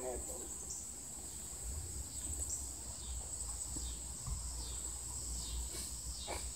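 Insects droning outdoors: a steady, high-pitched buzz that goes on without a break, over a low, steady rumble.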